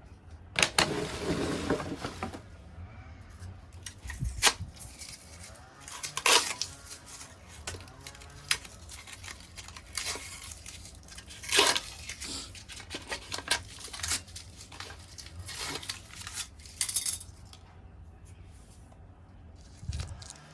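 Objects being handled: irregular rustling with a dozen or so sharp clacks and knocks, with a longer rustle near the start.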